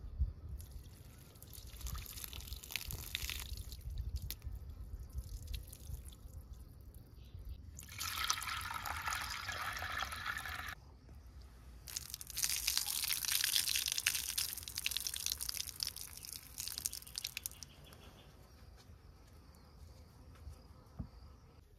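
Water poured from a jug into a wooden bowl of chickpeas and white beans, splashing and trickling through them as they are rinsed, in three spells with the longest about two thirds of the way in.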